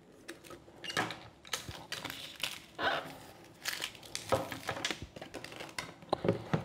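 Power supply's bundled cables being unrolled by hand: irregular crinkling and rustling with short clicks.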